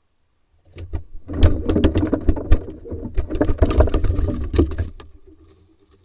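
A barn owl moving through the entrance tube of a wooden nest box: a quick, irregular run of knocks and scrapes over a low rumble, starting a little under a second in and dying away after about four seconds.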